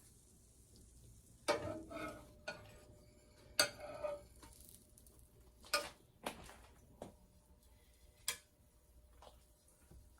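A kitchen utensil knocking and scraping against cookware, about seven sharp clinks at uneven intervals, some leaving a brief ringing tone.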